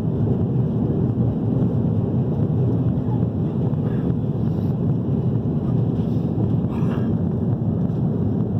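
Jet airliner cabin noise in flight: the steady low rumble of the engines and rushing air, unbroken and even.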